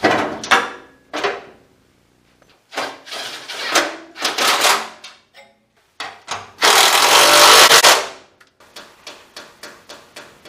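Cordless power driver running in short bursts, then in one longer run of about two seconds, as it drives the fuel tank's mounting bolts. After that come light, even clicks, about three a second.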